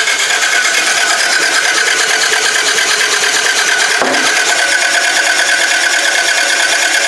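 Starter motor cranking a Toyota Camry's engine steadily, a fast even whirring that never catches or fires even on starting fluid: a no-start from a broken timing belt.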